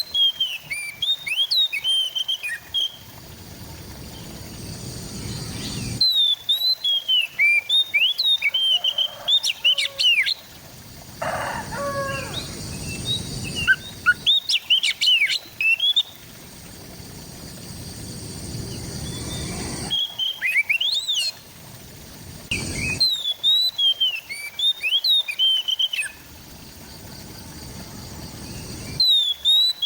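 Oriental magpie-robin (kacer) singing: bursts of quick, varied chirps and whistles a few seconds long, separated by short pauses. The background changes abruptly at several points, as where recorded takes are joined.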